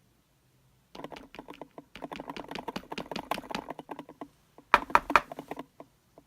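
Small metal lock pins and parts rattling and clicking in quick succession as the disassembled pin-tumbler lock is handled, with a short cluster of louder clicks about five seconds in.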